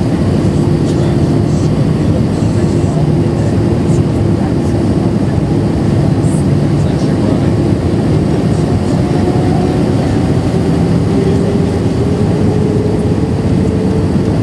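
Airbus A319 cabin noise in descent, heard from a window seat beside the wing: a loud, steady rush of airflow and jet-engine sound. Over the second half a humming tone slowly rises in pitch.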